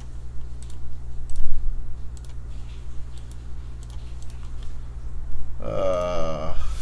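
Scattered single clicks of a computer mouse and keyboard as a list is selected, copied and pasted, over a steady low hum. Near the end a short wavering pitched sound lasts about a second.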